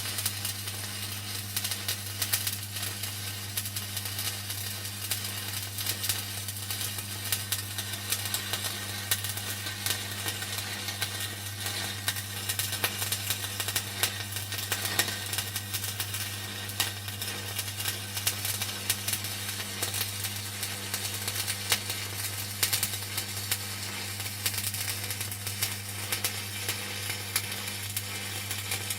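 Stick (shielded metal arc) electrode welding on a thick-walled pipe joint: the arc crackles and sizzles steadily while fill passes are laid over the argon root pass, with a steady low hum underneath.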